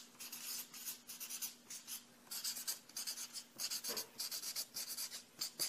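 Writing by hand on paper: a quick run of short, scratchy pen strokes as a note is written out.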